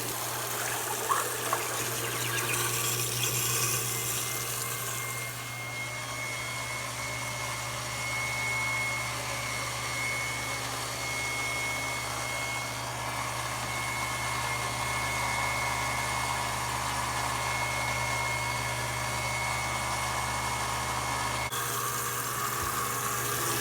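Moen GXP50c half-horsepower garbage disposal running steadily with a low hum, water running through it. The rush of water lessens about five seconds in.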